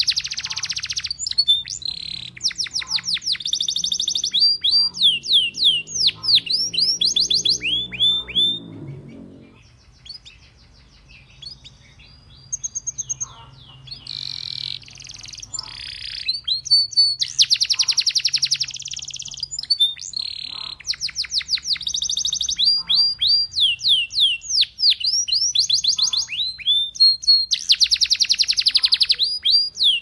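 Domestic canary singing: long runs of fast, repeated down-slurred notes in rolling trills, with a short lull about ten seconds in before the song resumes.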